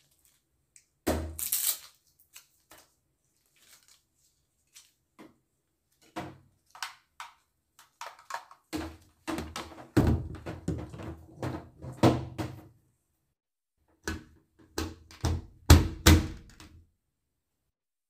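Knocks, thunks and rattles of a hot-air dryer brush and its coiled power cord being handled and set down on a tabletop box, the loudest thunks in the second half.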